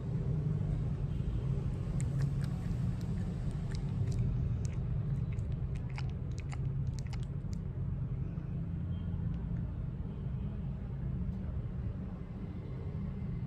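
A low, steady rumble with a scatter of small clicks between about two and seven seconds in.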